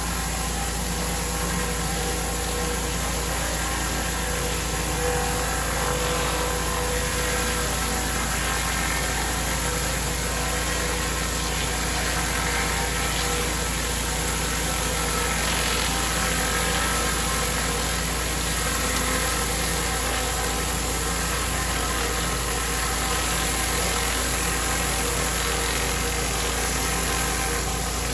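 Pressure washer's engine running steadily under the hiss of the water jet spraying a driveway.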